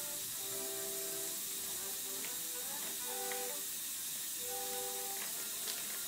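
Soft background music of slow, held notes over a steady hiss, with a few faint ticks.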